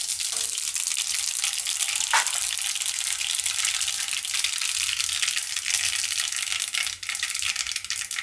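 Mustard seeds sizzling and crackling in hot oil, a dense run of tiny pops: the tempering (vaghar) for dal, with the oil hot enough for the seeds to splutter.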